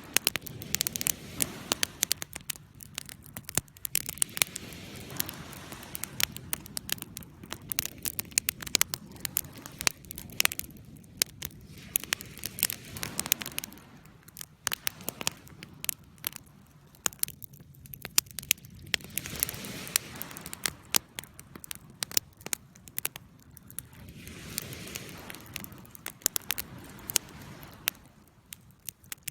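Campfire burning, wood crackling with frequent sharp irregular pops over a soft rushing of flames that swells and eases every few seconds.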